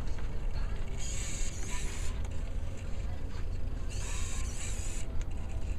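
Hobby servos of a small wheeled robot whirring in short runs of about a second, twice, as it drives in stop-and-go moves, over a steady low hum.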